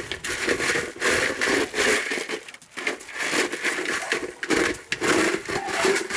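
Gravel crunching and scraping in irregular bursts as a dog pushes a helmet across it with its paws and muzzle.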